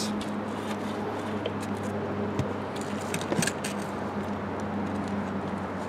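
Light clicks and scrapes of PVC pipe fittings and a primer can being handled, a few times, over a steady low hum.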